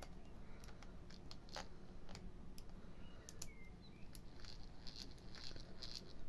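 Faint, irregular light clicks and small rattles from a freshly greased Abu Garcia 1044 closed-face fishing reel being handled and worked by hand.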